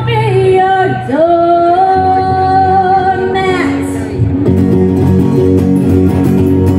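Live music from two strummed acoustic guitars with singing: a sung phrase ends on a long held note about halfway through, then the guitars strum on alone.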